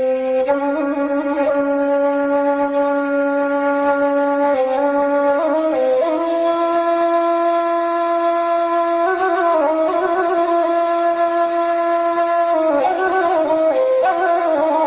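Woodwind instrument playing a melody in long held notes, with slides and ornamented turns between them and no break for breath.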